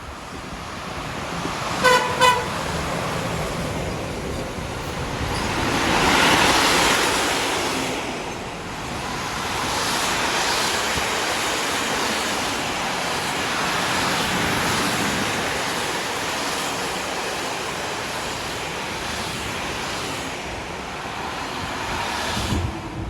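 Train horn sounding two short toots about two seconds in, then a passing train's broad rushing noise that swells about six seconds in and carries on until it cuts off near the end.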